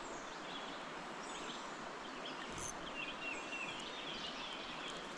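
Faint birdsong from the wooded riverbank, scattered short chirps and trills from several birds, over a steady low outdoor hiss.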